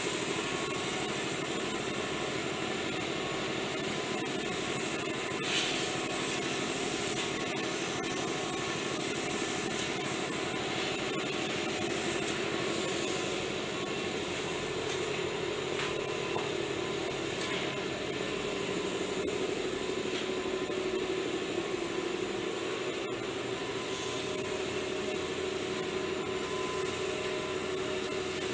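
A steady machine drone with a constant hiss over it, unchanging throughout, with one small knock a few seconds in.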